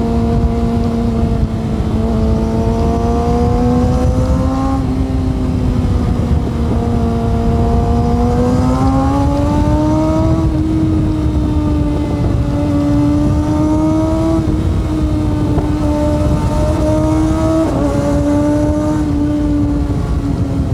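Kawasaki ZX-6R inline-four sport-bike engine pulling hard inside a road tunnel, its high, even note climbing steadily in pitch several times with small dips between climbs as it shifts up, over rushing wind and road noise.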